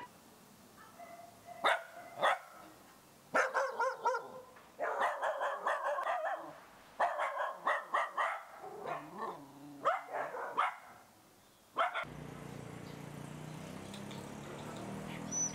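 Dog barking in quick runs of short, sharp barks, stopping abruptly about twelve seconds in; a steady low hum remains after that.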